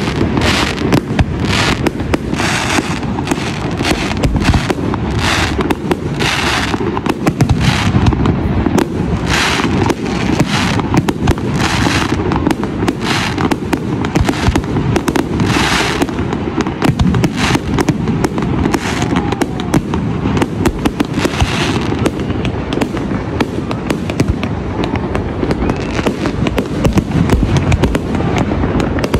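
Fireworks going off: a dense, continuous barrage of bangs over a steady low rumble of booms, with bursts of crackling every second or so that thin out after about twenty seconds.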